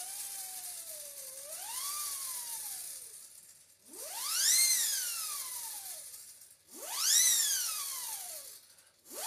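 3D-printed plastic siren whistle (the Orange Screamer) blown in three wails. The first is softer and wavers down, up and down again. The next two each sweep sharply up in pitch and slide back down.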